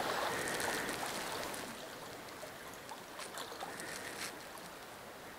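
River water flowing steadily over a pebble shallow, with a few faint small splashes about three to four seconds in.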